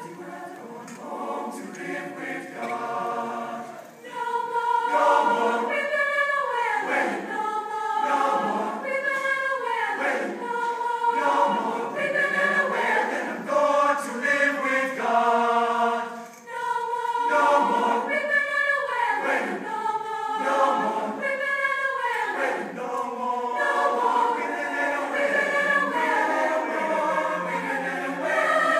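High school a cappella choir singing a gospel song without instruments, soft at first and swelling louder about four seconds in.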